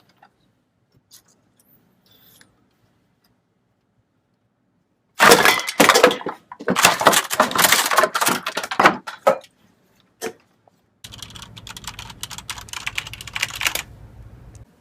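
A run of loud, rapid, irregular clattering and cracking of hard objects lasting about four seconds, then a single click. After that comes a softer rattling over a low steady hum.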